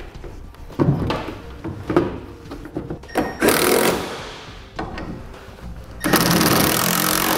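A plastic taillight knocking as it is set into its opening, then a cordless driver with a socket extension running in bursts to tighten the taillight's mounting fasteners. A short burst comes past the middle, and a longer, louder one near the end.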